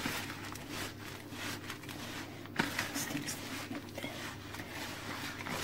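Hands kneading a moist stuffing of coarse bulgur, minced meat and herbs in a plastic bowl: a run of soft, short, irregular rubbing and squishing noises.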